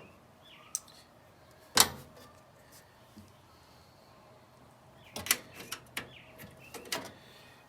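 Scattered sharp metallic clicks and knocks of hand tools and fasteners being worked loose from sheet metal: one loud click about two seconds in, then a run of lighter clicks in the second half.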